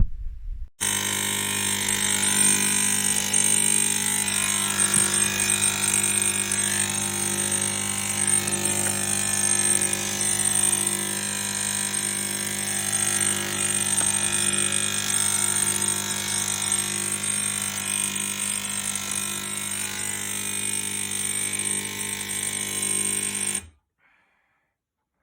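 Swan SK22110BN espresso machine's pump buzzing loudly and steadily, then cutting off suddenly near the end. It is far noisier than it should be, which the owner takes as a sign that the machine is broken.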